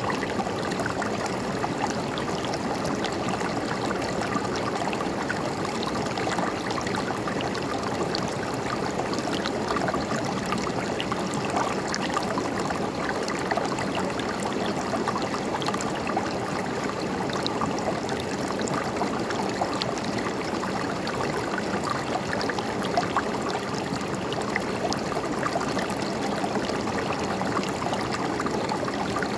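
River water running and gurgling steadily over rocks, with small splashes throughout.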